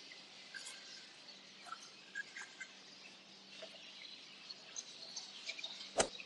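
Faint, scattered chirps of small caged birds over low market background noise, with a single sharp click near the end.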